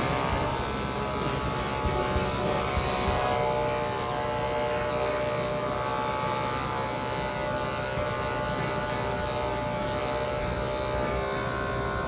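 Electric pet grooming clippers running with a steady buzz, shaving a miniature schnauzer's coat around the ears.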